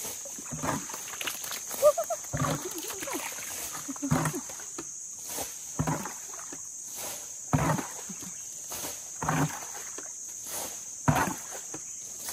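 Water being bailed out of a shallow muddy fish pond with a bucket, one scoop and splash about every second and a half to two seconds. A steady high drone of insects runs underneath.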